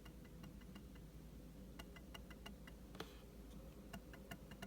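Trackpad of a 2016 15-inch MacBook Pro with Touch Bar clicked over and over in quick runs of faint clicks, one a little louder about three seconds in. The click is a hollow, mushy one rather than a solid one, which the owner takes for a fault of this trackpad.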